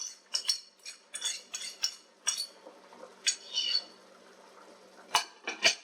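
A utensil clinking and scraping against cookware while the beaten eggs are poured out and stirred: a quick run of sharp ringing clinks in the first two and a half seconds, a few more around the middle, and the two loudest near the end.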